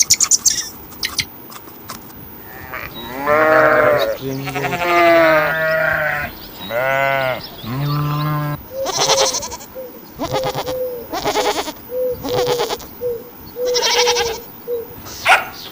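A farm animal bleating: four long, wavering bleats, followed by a quick run of about a dozen short, sharper calls.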